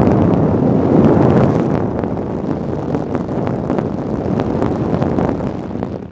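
Lasko 4900 high-velocity blower fan running, its airstream blowing straight onto the microphone as a loud, steady rush of wind noise. The rush drops away sharply for a moment near the end, then comes back.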